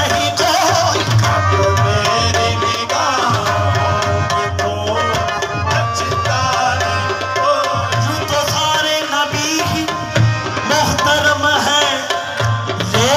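Qawwali music: tabla keeping a steady rhythm under a sliding melodic line.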